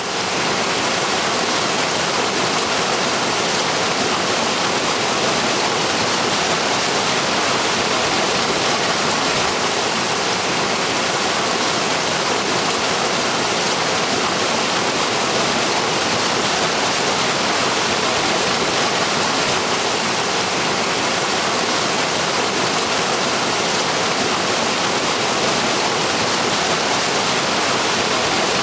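Small waterfall running full after heavy rain, pouring into a loch: a steady, even rush of falling water.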